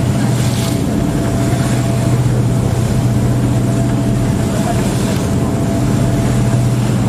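Passenger ferry's engines running steadily under way, a low continuous drone with a faint steady whine above it, under an even rush of wind and water.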